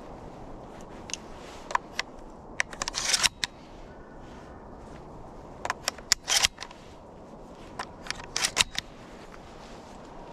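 Footsteps crunching in dry fallen leaves: four short clusters of sharp crackles a couple of seconds apart, over a steady outdoor hush.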